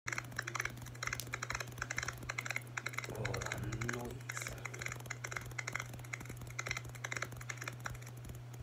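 Rapid, irregular clicking, like keys or small tapping parts, over a steady low hum, with a brief murmur of a voice about three seconds in.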